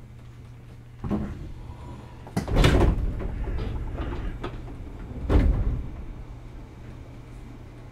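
Three heavy thuds: a lighter one about a second in, then two loud, deep ones near two and a half and five seconds in, over a steady low hum.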